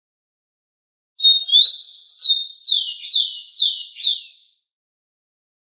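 Rufous-collared sparrow (tico-tico) singing one song: a short steady whistle and a rising note, then five quick falling slurred notes, about three seconds in all.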